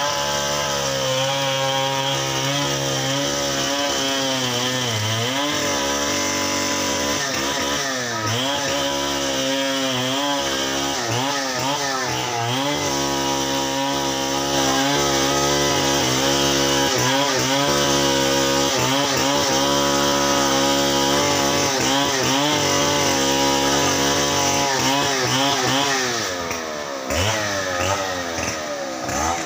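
Chainsaw cutting through fallen trees, its engine pitch repeatedly dropping under load and climbing back as it revs. It runs a little quieter near the end.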